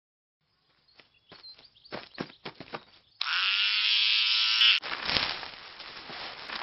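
Cartoon sound effects: a run of light, quick taps, then a loud electric buzz like hair clippers for about a second and a half, cutting off into a crackly rustling.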